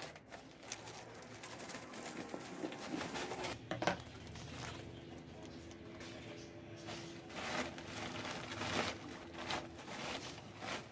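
Plastic shopping bag crinkling and rustling as it is cut with scissors and then handled and pressed into a wire hanging basket, with a sharper crackle about four seconds in.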